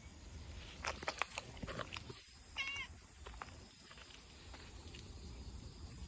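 A stray cat gives one short meow with a wavering pitch about two and a half seconds in, after a few light clicks and rustles.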